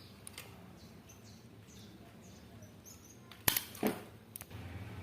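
A few sharp clacks and knocks from an electric fan being handled during repair, the loudest two close together about three and a half seconds in. A low steady hum starts near the end.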